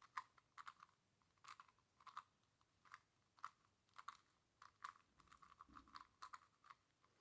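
Faint plastic clicks and snaps of a 2x2 Rubik's Cube being turned quickly, a couple of dozen irregular turns as a Y-perm algorithm is executed to swap two diagonal corners.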